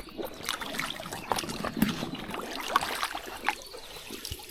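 Water splashing and dripping, with an irregular run of small sharp ticks and taps, as a wet fish-trap net is handled at the water's edge.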